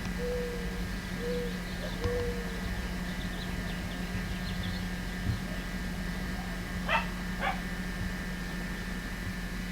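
A dove cooing in short low notes during the first few seconds, then a small dog giving two quick yips about half a second apart, over a steady low hum.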